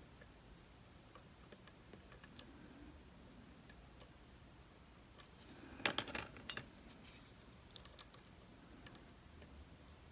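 Small metallic clicks and taps of lock-picking tools working in a DOM RS8 high-security lock cylinder, sparse at first, with a short burst of louder clicking and rattling about six seconds in.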